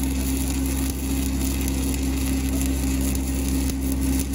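Stick welding with a 7018 low-hydrogen rod on steel pipe: the arc crackles and sizzles steadily as the rod is dragged along the joint, depositing metal. A steady engine hum runs underneath.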